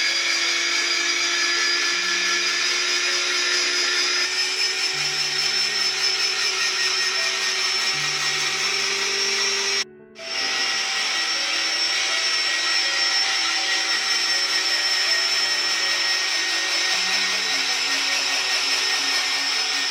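Electric grater motor running steadily with a high whine as carrots are shredded through its cone drum. It cuts out for a moment about halfway through, and soft background music plays underneath.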